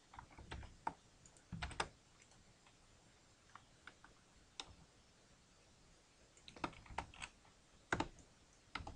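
Faint, scattered clicks of a computer keyboard and mouse: a few near the start, a single one around the middle, and a quick run of them in the last few seconds.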